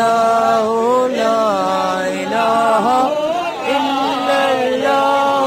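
A voice chanting an Islamic devotional recitation (zikr) in long, held notes that slide up and down between pitches.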